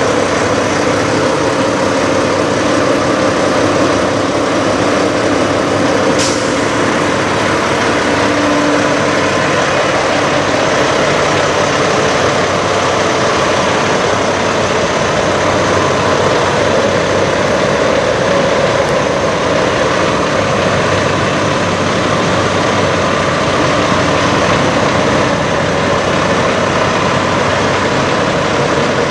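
Peterbilt 389 semi truck's diesel engine idling steadily, heard up close, with one brief sharp tick about six seconds in.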